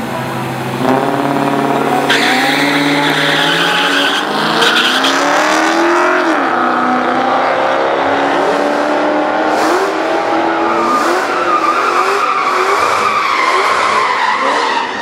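Holden Commodore and Honda Civic launching off the drag strip start line and racing flat out. The engines rev hard, their pitch climbing and dropping back several times as they change gear.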